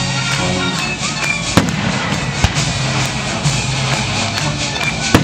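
Fireworks bursting with three sharp bangs, about one and a half seconds in, a second later, and near the end, over a live symphony orchestra playing held notes.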